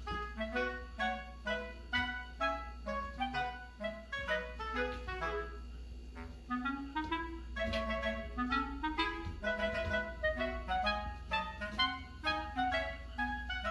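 Background music: a light, bouncy tune of quick short notes, with a few runs of notes stepping upward.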